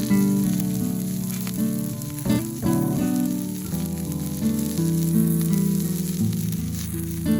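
Food sizzling and frying in a pan, a steady crackling hiss.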